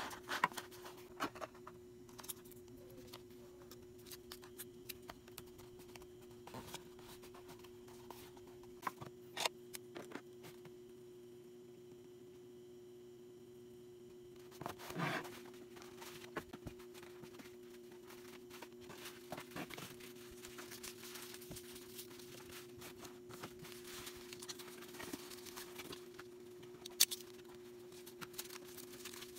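Packing materials being handled at a table: scattered light taps, clicks and rustles, with a louder rustle about halfway through, over a steady low hum.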